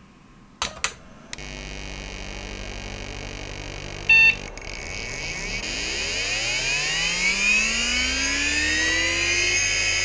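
Two clicks, then a computer starts up with a steady hum. A single short POST beep sounds about four seconds in, and then the Fujitsu M2903SGM 5400 rpm SCSI hard drive's spindle motor spins up with a rising whine that climbs steadily for about five seconds.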